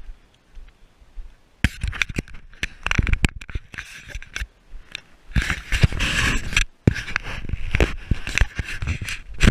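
Close scraping and crackling rustles with many sharp clicks, starting about a second and a half in and stopping abruptly at the end.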